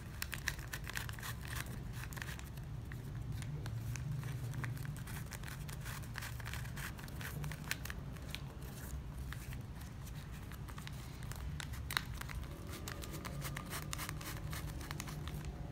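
Shiny ribbon crinkling and rustling as strips are pulled and threaded through a woven ketupat, with many small crackles and clicks, the sharpest a little before the end, over a steady low hum.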